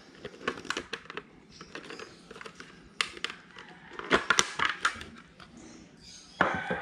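Plastic clicks, knocks and rattles of a KYT NZ Race helmet's visor being unclipped from its side mechanism and handled, loudest a few seconds in. A rooster starts crowing near the end.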